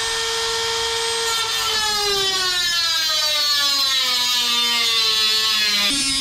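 Handheld rotary tool with a cut-off wheel cutting an aluminium wing spar to length: a high motor whine that holds steady for about a second and a half, then falls steadily in pitch as it cuts, dropping again suddenly near the end.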